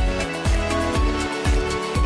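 Electronic dance music with a steady four-on-the-floor kick drum, about two beats a second, under sustained synth chords.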